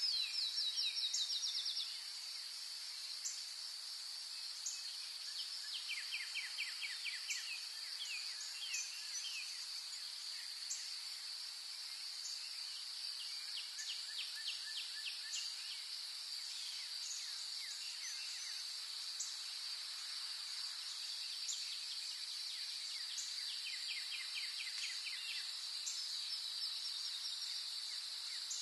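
Nature ambience: a steady high-pitched insect drone, with short rapid trills and high chirps coming and going over it.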